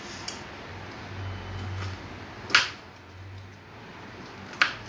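A knife knocking on a cutting board a few times while peeled citrus fruit is cut into small cubes. The knocks are short and sharp, the loudest about halfway through.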